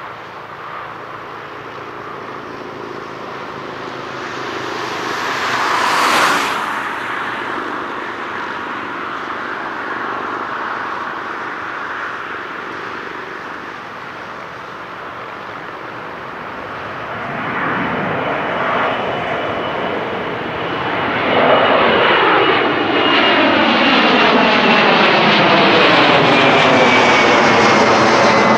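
Boeing 767-300 freighter's twin jet engines at take-off power, rumbling as it rolls, lifts off and climbs toward the listener, with a brief whoosh about six seconds in. In the second half the noise grows much louder as the jet comes overhead, with a swirling, phasing sound and a high whine that slowly falls in pitch.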